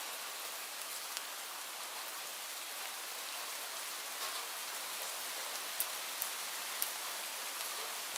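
Light rain falling: a steady soft hiss with scattered individual drops ticking on a surface, a few of them sharper near the end.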